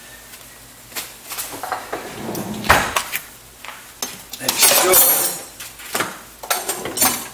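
Pliers and small metal hardware being handled on a workbench: a series of sharp metallic clinks and clatters, with a longer rattling scrape a little past the middle.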